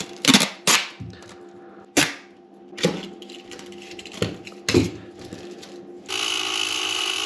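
Plastic sheet being handled and cut, with a series of sharp crackles. About six seconds in, a Parkside cordless rotary tool fitted with a carbide burr switches on and runs at a steady speed.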